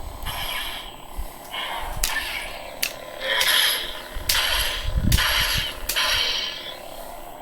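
Budget sound-font lightsaber playing its blaster-deflection sound effect through its small built-in speaker, about five sharp zaps one after another from about two seconds in.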